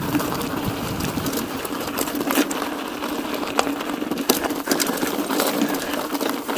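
Mountain bike rolling over a rough dirt trail: a steady buzz with scattered rattles and knocks from the bike.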